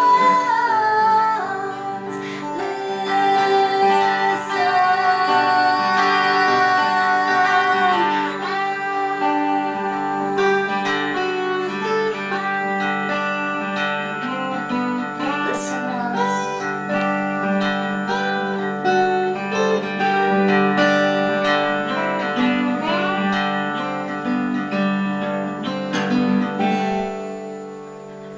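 Acoustic guitar and slide guitar playing the song's instrumental close, with notes gliding up and down between pitches, fading down near the end.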